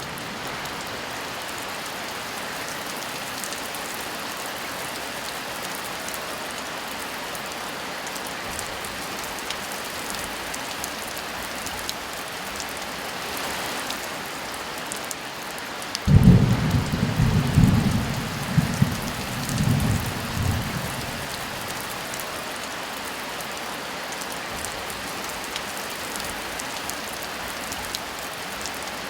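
Steady heavy rain hissing throughout, with a loud roll of thunder rumbling in suddenly a little past the middle and dying away over about five seconds.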